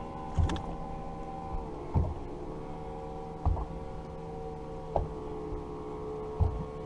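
Steady electric motor hum, typical of a bass boat's trolling motor, its pitch stepping down a little early on and rising again near the end. A low thump comes about every second and a half.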